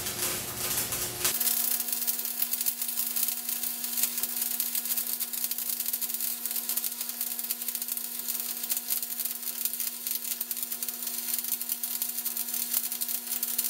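Stick (shielded metal arc) welding: the electrode's arc crackling and sizzling continuously over a steady hum, played back at double speed.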